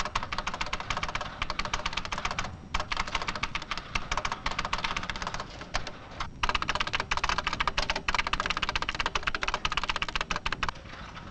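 Fast typing on a computer terminal keyboard: a rapid run of key clicks, broken by two short pauses, that stops shortly before the end.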